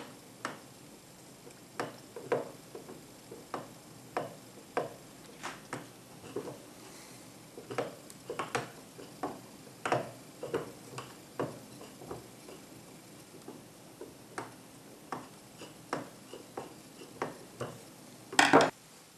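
Hand screwdriver driving a small screw into the wooden vise part, giving a run of separate clicks and ticks, about one to two a second, as the screw is turned. A louder cluster of knocks comes near the end.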